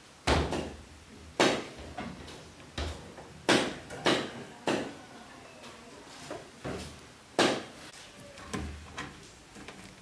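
A series of sharp knocks and clunks at uneven intervals, about ten in all, like hard objects being set down or bumped.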